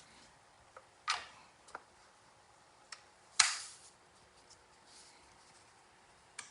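A few light clicks and knocks of wood pieces being handled and set into a wooden edge-banding clamp jig, with one louder knock about three and a half seconds in.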